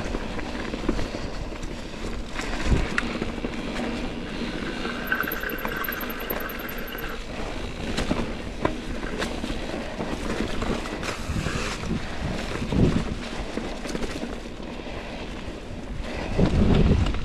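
Mountain bike rolling fast down dry, leaf-covered dirt singletrack: tires crunching and rustling through leaves, with the bike knocking and rattling over roots and rocks and wind buffeting the microphone. A brief rapid ticking buzz comes about five seconds in, and a louder low rumble near the end.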